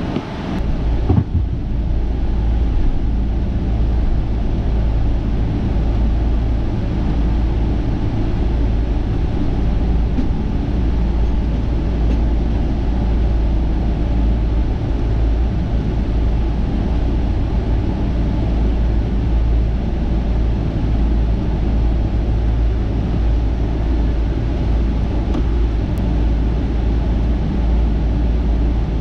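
Boeing 777-200ER's Rolls-Royce Trent 892 turbofan engines running at takeoff power during the takeoff roll, a steady loud deep rumble heard from a cabin window seat. A brief knock about a second in.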